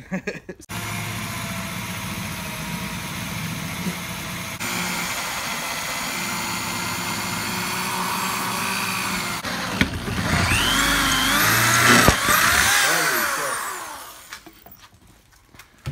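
Electric drill boring a new hole through a steel seat bracket: the motor runs steadily under load for about thirteen seconds, and in the last few seconds the bit screeches in the metal in wavering pitch before it stops.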